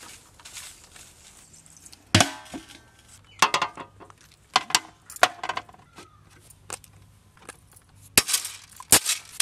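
Plastic jars of wooden toothpicks being set down one by one on a steel tray: a series of sharp clacks and knocks, some with a short ring, starting about two seconds in.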